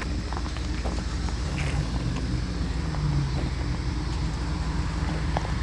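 Steady low engine rumble with scattered faint clicks.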